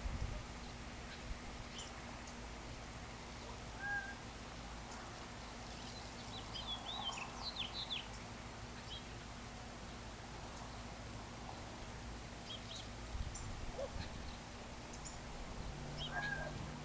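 Scattered bird calls and chirps, with a cluster of quick twittering about halfway through, over a steady low hum.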